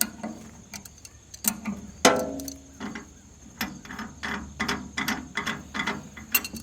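Hand wrench working on the steel tracking bolts and jam nuts of a sawmill blade tensioner: a loud metal clank with a brief ring about two seconds in, then a quick run of ratchet-like clicks, about three a second.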